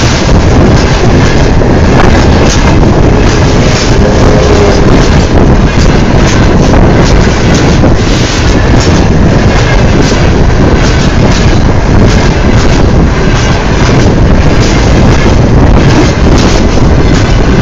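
Railway wagons rolling directly over a microphone lying between the rails: a loud, continuous rush of wheel and wind noise, broken by rapid clacks as the wheelsets pass overhead.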